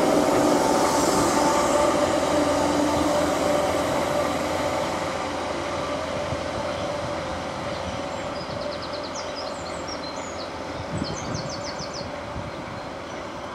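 Southern Class 313 electric multiple unit pulling away and running off into the distance. Its rail and running noise fades steadily as it recedes.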